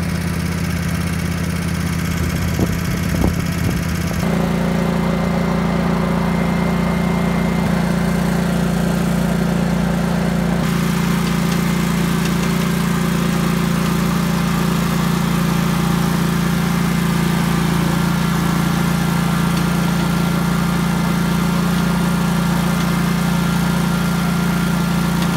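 Engine of a vehicle running steadily at an even speed as it is driven along, with a change in its note about four seconds in.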